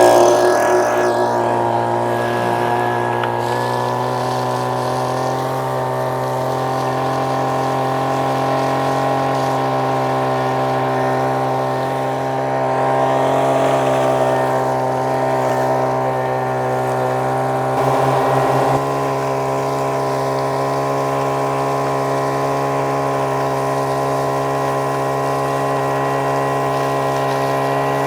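Small gas engine of a Vac Pac prospecting vacuum running steadily at a constant pitch, just after being coaxed into starting. There is a slight swell in level about halfway through and a brief change in tone a little later.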